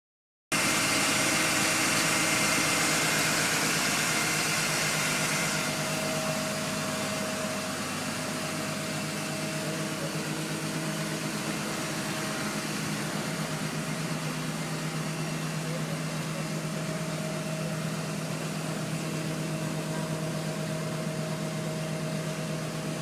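CompAir C250-12 TurboScrew diesel portable screw compressor running steadily. The sound comes in abruptly, with a loud hiss on top for the first five seconds or so, then settles to a steady drone.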